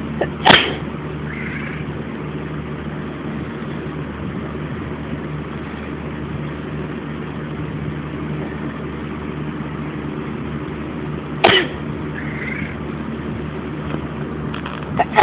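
A person sneezes sharply and about a second later a cat answers with a short meow, the cat's 'bless you'. This happens twice, with a third sneeze at the very end, over a steady low hum.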